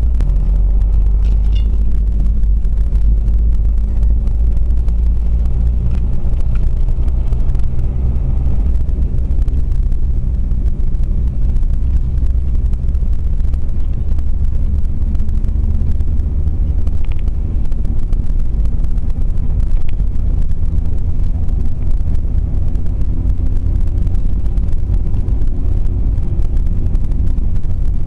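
Renault Megane 1.5 dCi driving along a road, heard from inside the cabin: a steady low rumble of the four-cylinder turbodiesel engine and tyres, with the engine hum fading about nine seconds in and coming back later.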